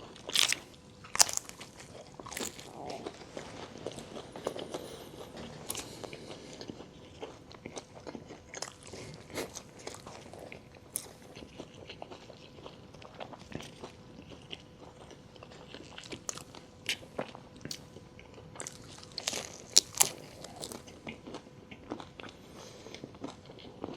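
Close-miked eating: crisp food crunching under repeated bites, with softer chewing between them. The loudest crunches come right at the start and again about twenty seconds in, over a faint steady hum.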